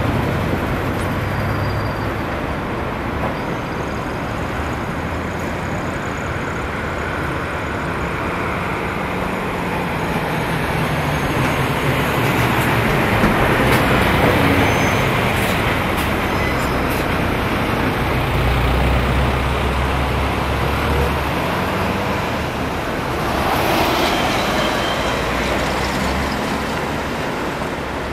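ND55 diesel locomotive's engine running under load as it slowly hauls a train of oil tank wagons, a low drone that shifts and swells, with the rumble of the wagons rolling over the rails.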